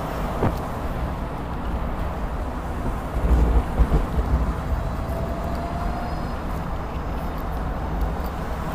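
Road and wind noise from a Commuter Cars Tango, a narrow electric car, at freeway speed among traffic: a steady low rumble with a few heavier thumps about three to four seconds in, and a faint whine rising briefly past the middle.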